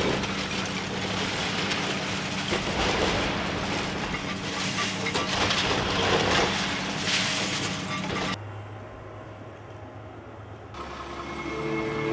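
Hydraulic excavator's diesel engine running while its demolition crusher jaws break through a brick wall, with bursts of crunching and falling brickwork. About eight seconds in the sound drops suddenly to a quieter engine hum, and music begins near the end.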